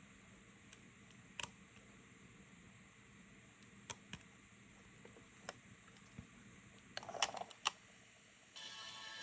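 Scattered light clicks and taps, with a quick cluster of clicks about seven seconds in. Background music starts near the end.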